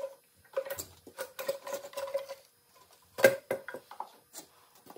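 Metal parts of a stripped VW TDI diesel engine clinking and rattling as they are handled by hand, with one louder clank a little over three seconds in.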